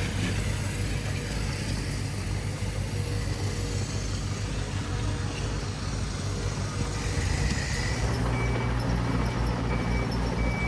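Diesel engine of heavy construction machinery running with a steady low hum. About eight seconds in, the engine note grows stronger and pulses, and a reversing alarm starts beeping about twice a second.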